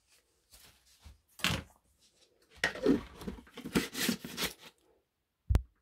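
Light knocks, scrapes and rustles of painting materials being handled on a work table, with a denser run of handling noise in the middle and one short sharp knock near the end.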